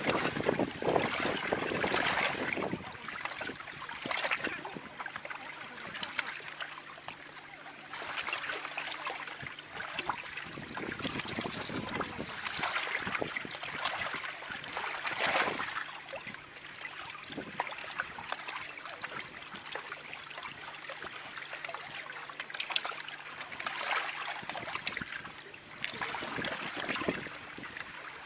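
Small wind-driven waves lapping and splashing against the shore or a boat, in surges every second or two, with some wind.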